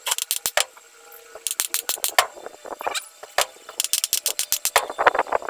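Rubber mallet tapping an oil seal into a Yamaha 125ZR's aluminium crankcase half, in quick runs of taps about ten a second with short pauses between runs. It is driving the seal the last bit home after the press left it not quite fully seated.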